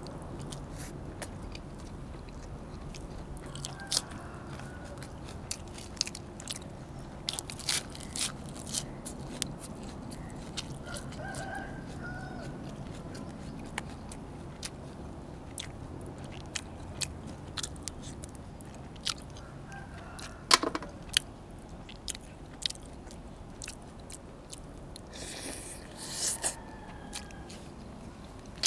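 Close-miked chewing and biting of braised pork ribs: irregular wet mouth clicks and smacks with occasional crunches. A short, louder noisy burst comes near the end.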